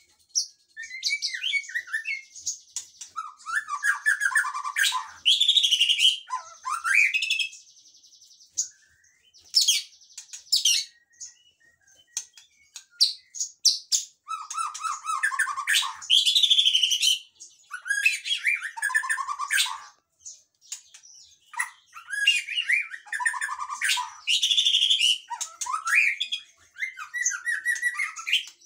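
White-rumped shama (murai batu) singing: varied phrases of clear whistles and fast warbled trills, coming in several bouts of a few seconds with short pauses between them.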